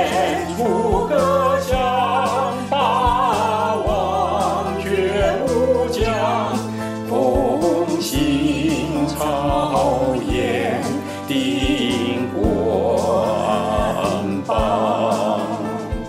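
Sung song: a singer holds long notes with strong vibrato over a MIDI backing track with steady bass notes and regular drum hits.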